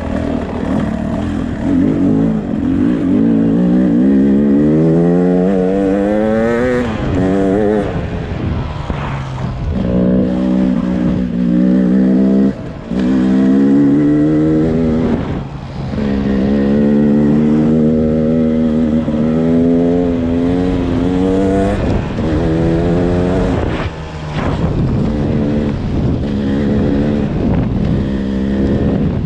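Beta RR 300 two-stroke enduro motorcycle's single-cylinder engine under hard acceleration. It revs up, its pitch climbing, then breaks off and drops at each gear change or throttle chop, about five times, and picks up again.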